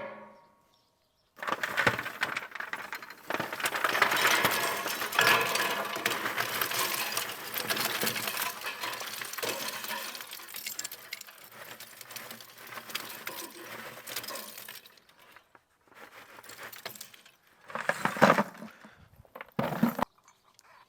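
Oak chunks and lump charcoal clinking and clattering against each other in the Kamado Joe Big Joe 3's firebox as wood is added and shifted, one long spell of clatter and then a few short ones near the end.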